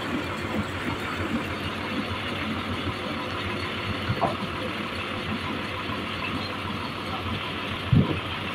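Sawmill machinery running steadily, with a short knock near the end.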